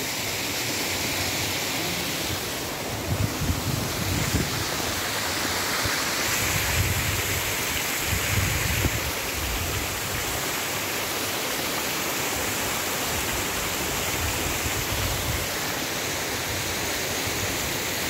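Waterfall cascading over rock ledges, a steady rushing of water, with some low rumbling between about three and nine seconds in.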